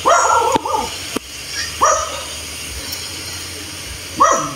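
A dog barking repeatedly in short, high yelping barks: two at the start, one about two seconds in, and another near the end.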